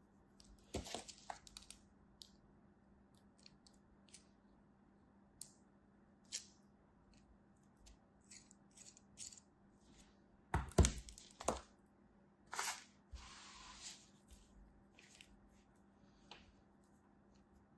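Kinetic sand being worked by hand: crumbled, scraped level across a plastic mold with a knife and pressed into a plastic mold, making scattered soft crisp crackles and scrapes, with a cluster of louder ones a little past the middle.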